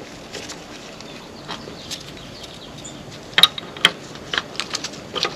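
Small metallic clicks and taps of brake pads being slid into a motorcycle's four-piston radial front brake caliper: two sharper clicks about three and a half seconds in, then a run of lighter ticks.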